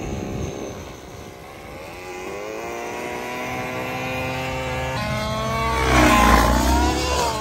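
Two-stroke gasoline engine with a tuned pipe on a large gas RC helicopter, spooling up with steadily rising pitch. After a cut it is flying, its pitch dipping and climbing again as it gets louder.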